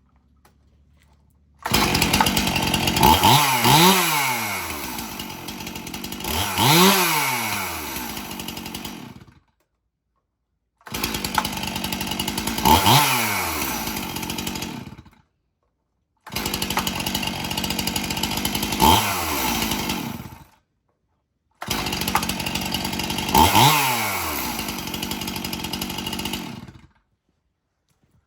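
Two-stroke gas chainsaw running, with its throttle revved up and let back down to idle several times. The sound comes in four stretches, each cutting off suddenly.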